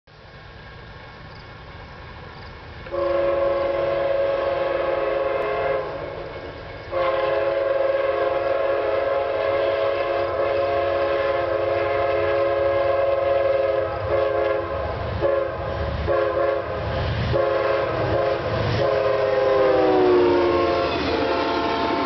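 Amtrak GE P42DC locomotive's Nathan K5LA five-chime air horn played as a horn show salute: a chord blast about three seconds in, a short break, then a long held chord with several quick breaks. The chord drops in pitch as the locomotive passes, and the rumble of the passing passenger train builds under it.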